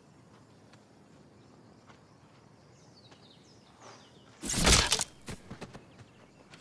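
A machete swung hard through a wicker training dummy: one loud whooshing chop about four and a half seconds in as the blade cuts the dummy's head off, followed by a few lighter clicks. Faint bird chirps before it.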